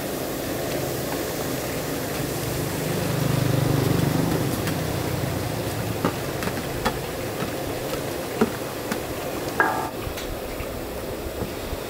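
Shallots and spices frying in oil in a large wok, sizzling over a steady low rumble that swells for a moment about three seconds in. In the second half come several sharp metal clinks of a ladle against a bowl or the wok.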